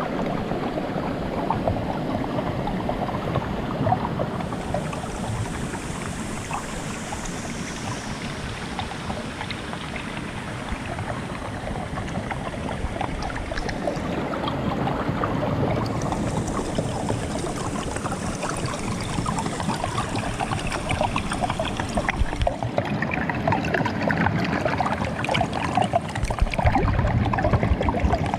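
Stream water flowing steadily under a sheet of frozen ice.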